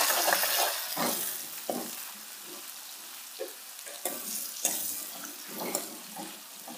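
Onions and ginger-garlic paste frying in hot oil in a metal karahi. It sizzles loudly at first and settles to a steadier hiss within about two seconds, while a metal spoon stirs and scrapes against the pan several times.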